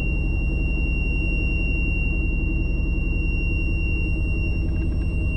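Boat's engine overheating alarm sounding a steady high-pitched tone over the low, steady running of the boat's engine. The alarm signals the engine is overheating, caused by a thermostat stuck shut and stopping the cooling water.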